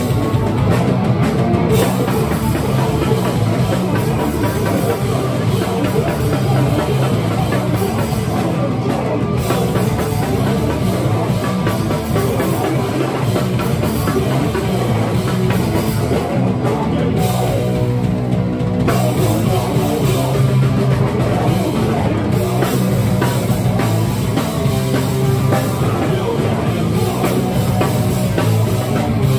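Hardcore punk band playing live, loud and dense: distorted bass and guitar over fast drumming with crashing cymbals. A little past halfway the cymbals drop out for about two seconds, then the full band comes back in.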